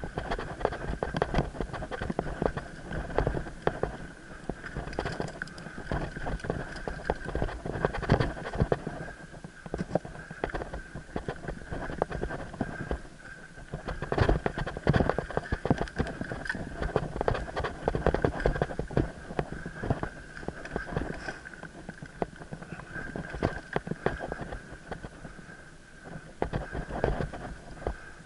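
Mountain bike ridden fast over rough forest singletrack: dense, irregular rattling and knocking as the bike bounces over roots and bumps, with a low rumble and a steady high whine underneath.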